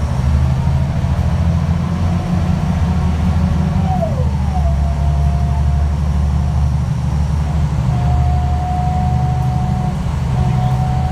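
City bus's diesel engine and drivetrain running under way, heard inside the passenger cabin: a steady low rumble whose pitch shifts as the bus pulls. A high whine drops in pitch about four seconds in, then holds steady, and comes back steady near the end.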